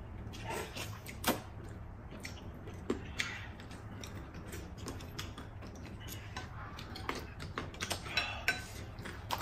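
Noodles being slurped from bowls, with chopsticks and porcelain spoons clicking against ceramic bowls in scattered short knocks.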